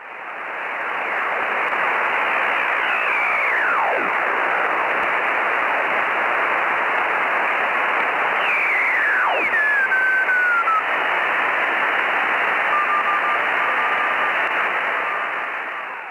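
Radio receiver static, a steady hiss, with two whistles sweeping down in pitch. In the second half, faint on-off Morse code beeps at one steady pitch come through the noise.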